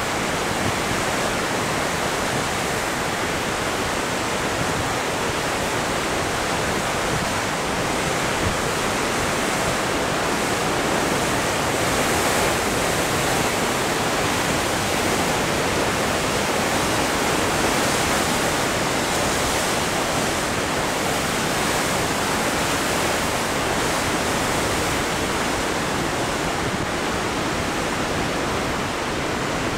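Heavy ocean surf breaking and washing over coastal rocks: a continuous rush of white water, swelling a little around the middle.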